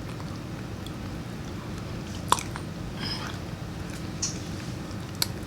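Soft, wet shells of boiled peanuts being cracked open by hand: a few sharp clicks and a short squishy crack, the loudest click about two seconds in and another near the end, over a steady low room hum.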